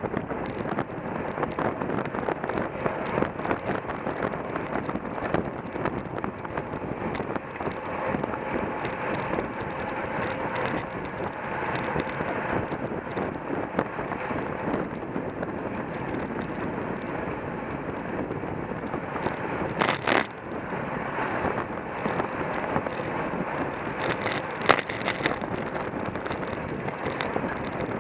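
Wind buffeting the microphone of a camera riding on a racing bicycle at speed, with constant rattling from the mount and road. There are two sharper knocks, one about two-thirds of the way through and another a few seconds later.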